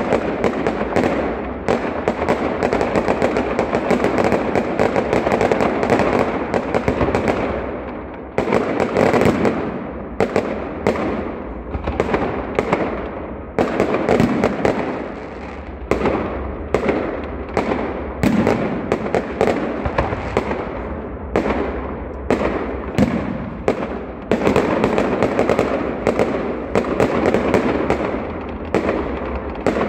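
Fireworks display: a dense, continuous barrage of shell bursts, bangs and crackling overlapping one another, with brief dips about a third of the way in.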